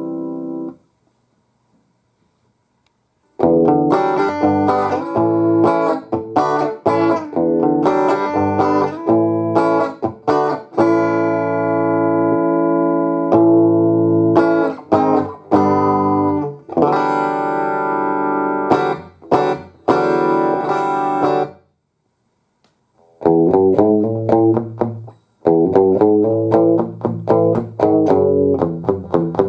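Guitar played through a Roland BA-330 portable PA amplifier: picked notes and strummed chords with some held, ringing chords. The playing stops about a second in and starts again about three seconds in, then pauses briefly once more about 22 seconds in.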